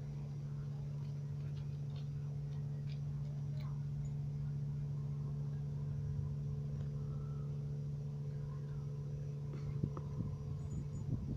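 Steady low mechanical hum, an even drone that holds one pitch throughout, with a few faint clicks. Some soft knocks and rustling come near the end.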